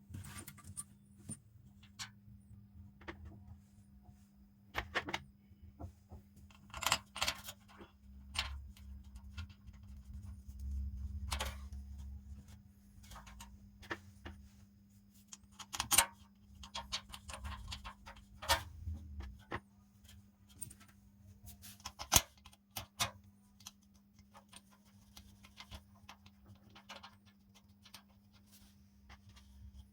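Small metal parts clinking and tapping as they are handled, in irregular clicks with a few sharper knocks, over a faint steady hum.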